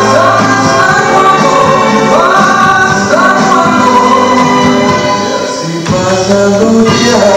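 Music with singing, loud and steady.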